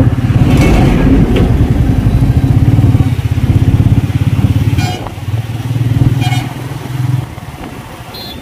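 Motorcycle engine running under way, heard from the rider's seat as a steady low pulsing. It eases off and grows quieter about seven seconds in.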